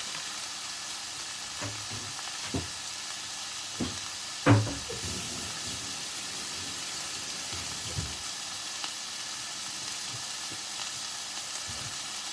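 Ground beef sizzling steadily as it fries in a pan, with a few knocks of a utensil stirring it against the pan; the loudest knock comes about four and a half seconds in.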